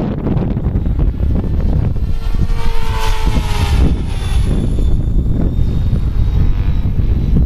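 Compass Atom 500 electric RC helicopter, Kontronik Minipyro motor, making a high-speed pass: its rotor and motor whine swells about three seconds in and falls in pitch as it flies by. Heavy wind noise on the microphone runs under it.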